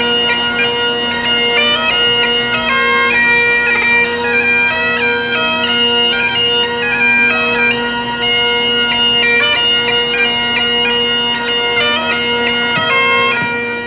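Great Highland bagpipe playing a tune: a steady drone under a chanter melody that moves from note to note. It stops right at the end.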